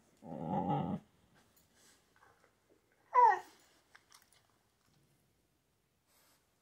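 Husky 'talking': a low, rumbly grumble near the start, then a short whine falling in pitch about three seconds in, the loudest sound.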